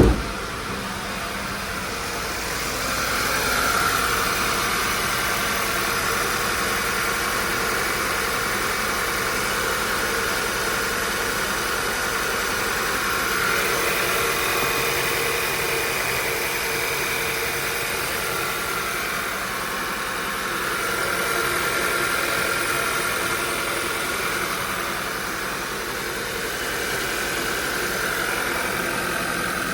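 Freshly rebuilt Audi/VW 2.0-litre turbocharged four-cylinder TSI engine running steadily, its level swelling and easing slowly. A brief sharp knock sounds right at the start.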